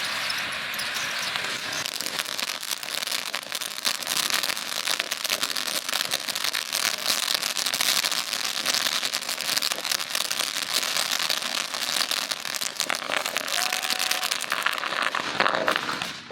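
Ground firework fountain spraying with a steady hiss and dense, rapid crackling, which stops abruptly near the end.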